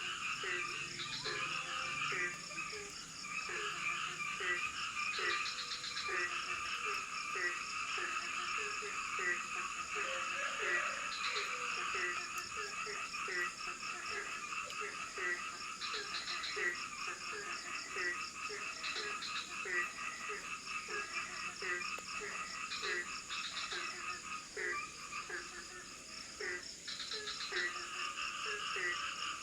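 Frog and insect chorus: a frog calling with short, low, falling notes about twice a second over a dense, pulsing chorus, with short trills breaking in now and then and a steady high insect whine.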